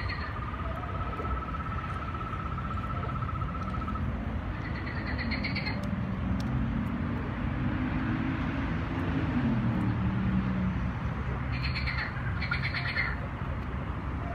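Recorded frog calls played through outdoor garden loudspeakers. A long, even trill runs for about four seconds at the start, followed by short pulsed croaks about five seconds in and twice more near the end. A lower, wavering pitched sound rises and falls through the middle, over a steady low background rumble.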